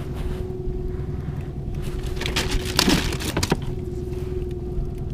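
Small boat's engine idling with a steady low hum, and a brief burst of clatter about halfway through.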